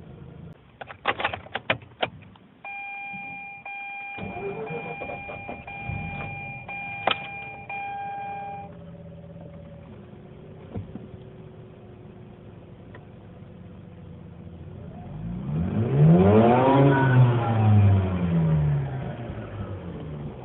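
Mazda RX-8's two-rotor rotary engine idling roughly, then revved up and let back down near the end, the loudest part. A few sharp clicks come about a second in, followed by a steady electronic warning chime for several seconds. The owner describes the engine note as raspy and rough and is unsure whether bad 89-octane fuel is the cause.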